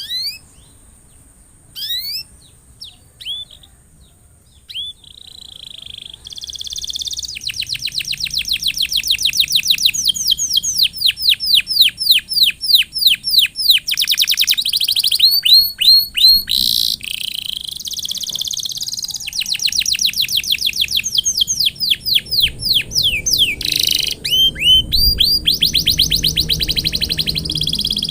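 Domestic canary in full song: a few separate rising chirps at first, then from about seven seconds in long, fast trills of repeated rising notes, with short breaks between runs.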